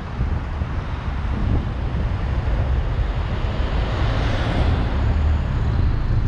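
Steady low rumble of a car driving, tyre and wind noise on the microphone, with a brief swell of rushing noise about four seconds in.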